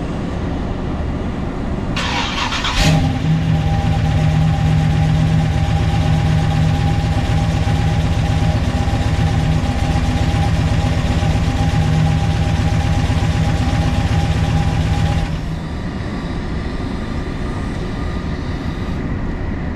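1984 Oldsmobile Cutlass Supreme's 454 big-block V8 cranking briefly about two seconds in, catching, and then idling steadily. About fifteen seconds in the idle drops a little and turns duller.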